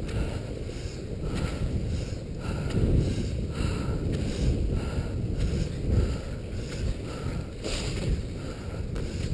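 Skis sliding over snow with wind buffeting the microphone as a skijorer is pulled along at speed by dogs, with a soft regular rhythm about once a second.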